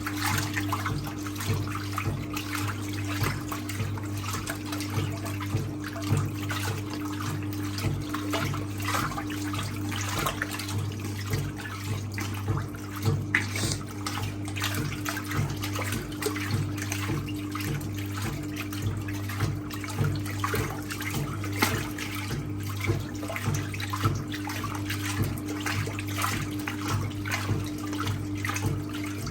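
1958 Hotpoint Empress washing machine running its rinse cycle: a steady motor hum under water and towels sloshing in the tub.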